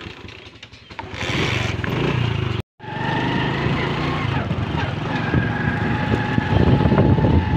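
Honda motorcycle engine running as the bike pulls away and rides along a dirt track, getting much louder about a second in. The sound drops out for an instant just under three seconds in.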